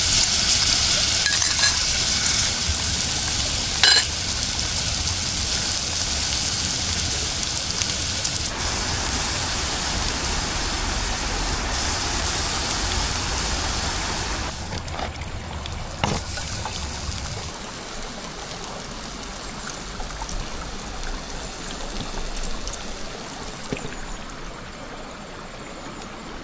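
A steady hiss of water or cooking with a few sharp clinks in the first seconds, dropping to a quieter, even hiss from about two-thirds of the way in.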